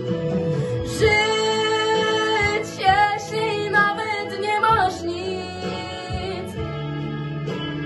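A teenage girl singing long, wavering held notes with no clear words over a backing track.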